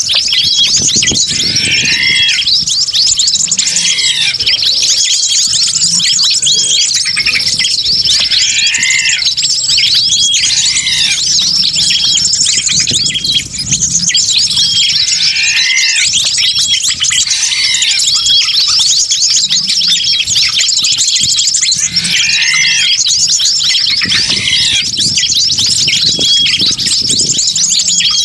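Bird-lure recording: a dense, noisy chorus of many small wild birds chirping and squawking at once, with one arched call repeating about every two seconds.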